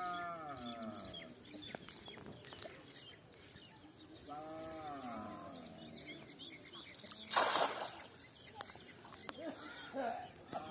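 A hand-thrown cast net lands on a pond with a splash about seven seconds in. A farm animal gives a drawn-out call that rises then falls, at the start and again about four and a half seconds in.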